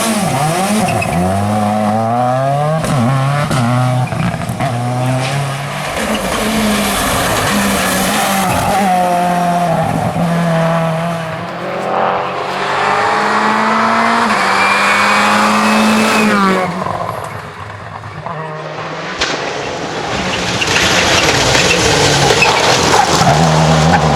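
Seat Córdoba WRC rally car's turbocharged four-cylinder engine under hard throttle, its pitch climbing and dropping back again and again through gear changes and lifts. It fades briefly about two-thirds of the way through, then comes back louder near the end.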